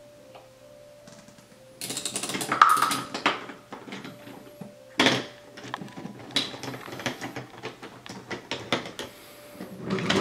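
Wooden toy train cars clattering and clicking along a wooden track as they are pushed by hand. The clatter starts about two seconds in, with a sharp click near the middle and then a run of quick, uneven clicks.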